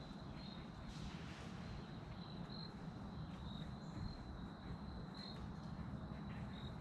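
An insect's steady high-pitched trill that swells briefly now and then, faint over a low steady outdoor rumble.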